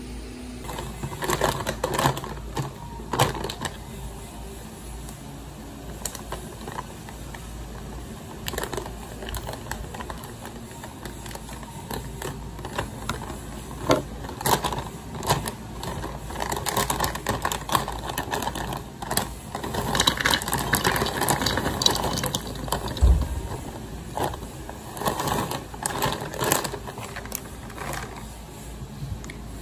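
Irregular clicks, taps and rustling from objects being handled close by, busier for a couple of seconds past the middle.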